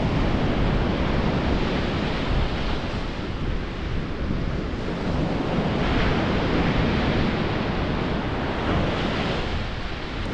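Surf breaking and washing up a stony beach, swelling and easing, with a louder wave break about six seconds in. Wind buffets the microphone throughout.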